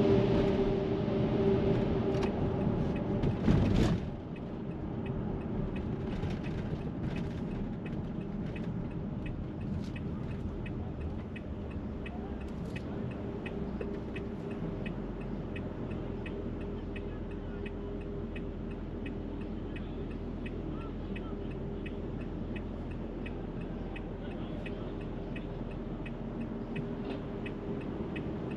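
Downtown street traffic: a loud vehicle rumbles past and cuts off about four seconds in. A steady low traffic hum follows, with faint, evenly spaced ticking.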